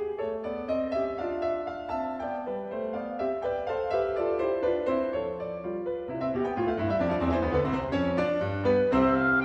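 Background music: piano playing a flowing line of notes.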